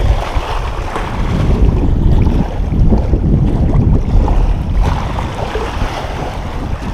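Wind buffeting the microphone in a steady low rumble, with small waves lapping on a rocky lakeshore.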